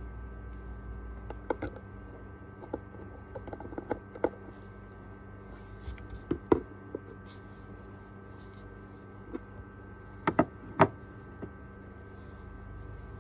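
Scattered light clicks and taps from handling skincare products, such as a glass serum dropper bottle, over a steady background hum. Two sharper clicks come close together about ten seconds in.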